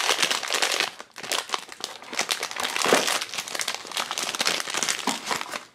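Silver foil blind-box bag crinkling as it is handled and pulled open by hand, with a short break about a second in.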